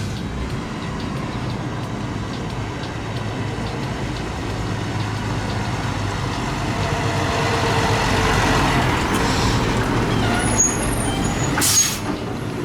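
Heavy fire-engine diesel running steadily, growing louder as the truck comes closer and then easing off. Near the end there is a short hiss of air brakes.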